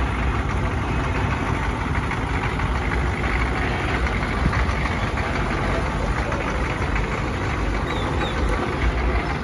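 Engine of a small Chevrolet short school bus, converted into a chicken bus, running steadily at low speed as the bus rolls slowly past.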